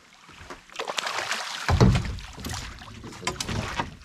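Water splashing and sloshing as a hooked spurdog thrashes at the surface and is scooped into a landing net, with a loud thump just under two seconds in.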